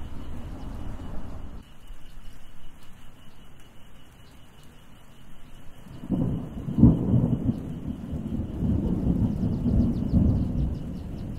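Thunderstorm with rolling thunder: a rumble that dies down for a few seconds, then a loud clap about six seconds in that keeps rumbling, over light rain.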